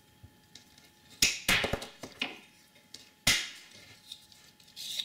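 Diagonal side cutters snipping through an 8-pin CPU power extension cable: a series of sharp snaps, the loudest a little past three seconds in.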